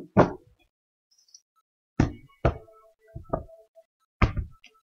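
A handful of sharp taps and knocks on a tabletop as a tarot deck is handled, spaced about half a second to a second apart, some with a brief ringing tone after them.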